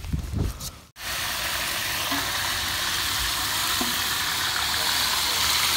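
Meat searing in a hot cast iron Dutch oven, a steady sizzle that starts abruptly about a second in.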